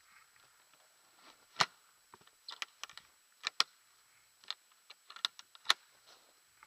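Sharp, irregular clicks and knocks from the ATV's rear cargo box being shut and latched, with no engine running.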